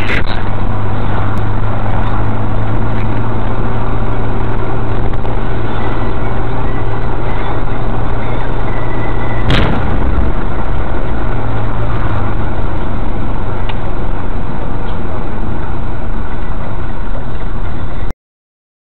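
Steady road and engine noise inside a moving car, picked up by a dashcam microphone. About halfway through there is one sharp bang from an explosion in a building up the street. The sound cuts off abruptly shortly before the end.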